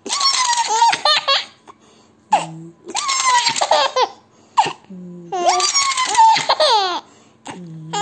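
Baby laughing in three bursts of quick, high-pitched laughter, with short pauses between them.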